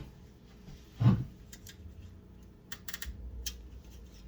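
Hands working cables inside a PC case: a dull thump about a second in, then a run of light clicks and rustling.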